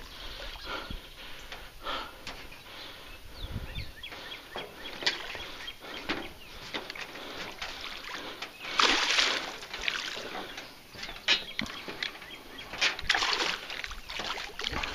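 Hooked northern pike thrashing and splashing at the water's surface on a taut line, in irregular bursts, loudest about nine seconds in and again near the end.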